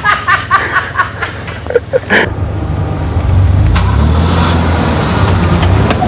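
Off-road 4x4's engine running with a steady low drone, heard from inside the cab, setting in about two seconds in after a few brief voices. A single knock partway through.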